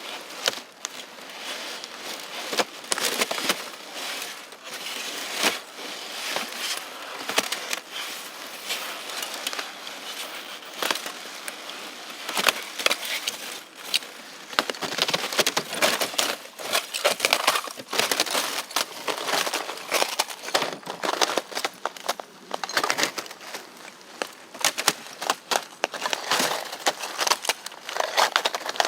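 Continuous irregular crackling and crinkling, with many sharp clicks close together.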